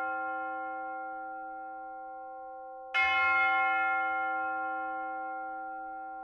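A single church bell tolling slowly, struck once about three seconds in, with the ring of the earlier stroke dying away before it and each stroke ringing on long after.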